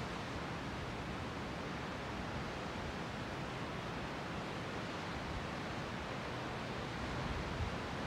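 Sea surf as a steady, even wash of water, with no single wave breaking out above the rest.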